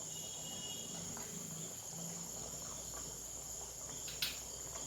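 Steady high-pitched insect trill, typical of crickets, with one sharp clink about four seconds in.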